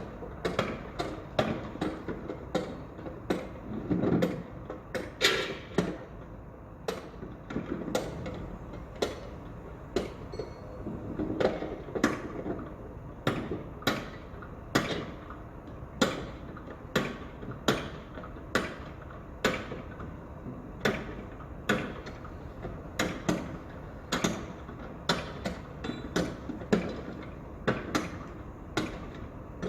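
Construction-site noise: sharp knocks and clanks, one to two a second at an uneven pace, over a steady low rumble.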